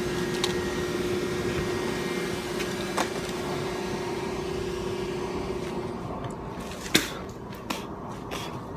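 Factory machinery running with a steady hum and one held tone that cuts off about six seconds in, with a few sharp knocks, the loudest about seven seconds in.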